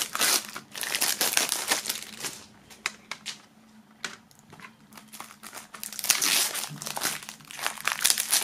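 Clear plastic shrink-wrap crinkling as it is peeled off a CD jewel case. It is loud at first, drops to a quieter stretch with a few clicks, and grows dense again about six seconds in.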